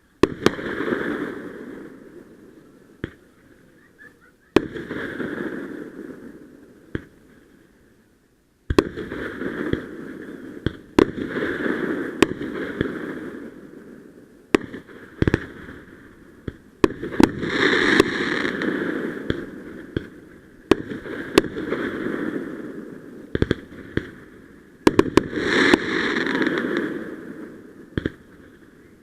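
Aerial fireworks going off: a string of sharp bangs, each followed by a crackling hiss that fades over a second or two, with a short lull about eight seconds in.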